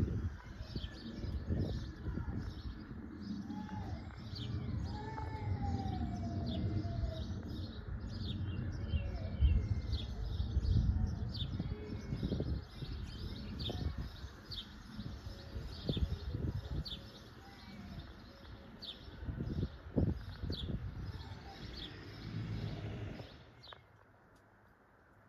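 Small birds chirping over and over in short, sharp, high calls, over a steady low rumble. The sound drops away abruptly near the end.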